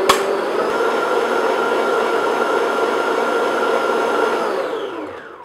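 Electric stand mixer running with its wire whisk beating vanilla into stiff meringue in a glass bowl: a steady motor whine with whisking noise. A click comes near the start, and about four and a half seconds in the mixer is switched off and winds down.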